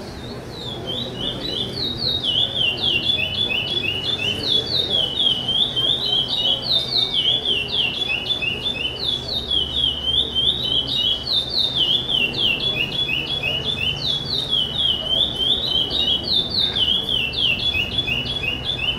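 Chopi blackbird (pássaro-preto) singing the 'charrua' song type: a long unbroken string of short, downward-slurred notes, the same phrase repeated over and over without a pause.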